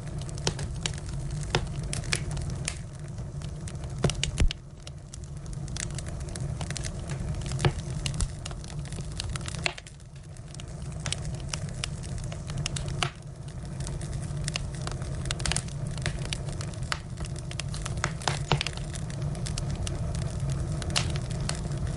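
Firewood fire burning, with irregular sharp crackles and pops over a steady low rumble.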